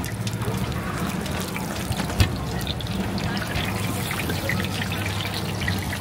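Fresh-meat pies deep-frying in a wide wok of hot oil, the oil sizzling and crackling steadily, with a single knock about two seconds in.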